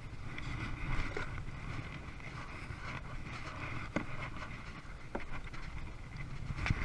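Strong wind buffeting the microphone over the wash of choppy water around a kayak, with a few sharp knocks scattered through.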